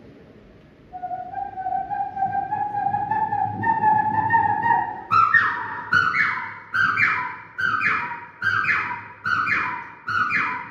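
A man imitating the call of the chatak (pied cuckoo) with his voice, in a whistle-like tone. A long note rises slowly, then a short two-note call, high then dropping, repeats about eight times in quick succession.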